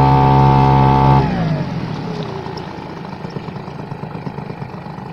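Outboard motor on an inflatable boat running steadily, then throttled back about a second in, its pitch falling as it dies away. Water washing along the hull follows as the boat slows.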